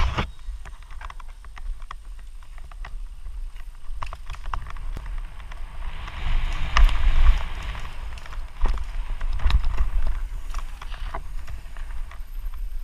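Mountain bike riding downhill on a dirt trail, heard from a camera worn by the rider: wind rumbling on the microphone, with rattling and clicking from the bike over bumps and a louder hiss of tyres on loose dirt about six seconds in.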